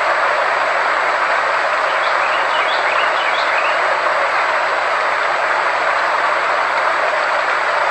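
Steady, even hiss-like noise with a faint low steady tone underneath, unchanging throughout: a synthesized frequency-therapy sound track. A few faint short chirps sit in the noise about two to three seconds in.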